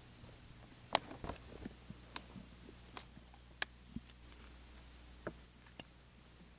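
Handling noises: scattered clicks and knocks, loudest about a second in, as a plastic water bottle and a backpack are handled, with a few faint bird chirps.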